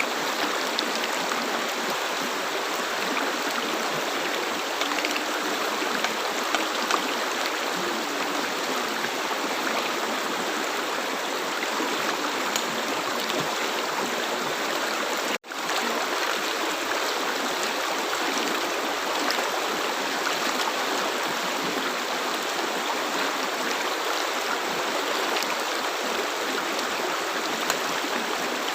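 River water flowing with a steady rush and small splashing gurgles. The sound cuts out for an instant about halfway through.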